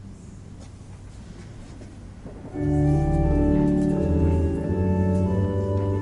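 Quiet, reverberant cathedral room tone with a few faint clicks. About two and a half seconds in, the cathedral's pipe organ comes in loudly, holding sustained chords over deep bass notes.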